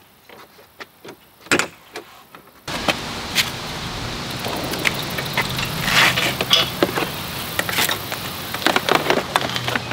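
A few clicks and knocks of handled metal parts, then, about three seconds in, the 12-volt electric motor of a 3-point broadcast spreader switches on suddenly and runs with a steady hum, with clanks and clicks of the hardware over it.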